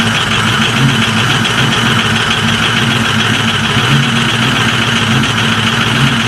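A big engine running steadily and loudly after a cold start, with a deep, even throb.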